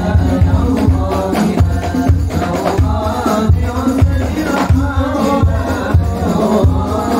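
Sholawat sung by a group of men through microphones and a PA speaker, over a steady drum beat of about two strikes a second with jingling percussion.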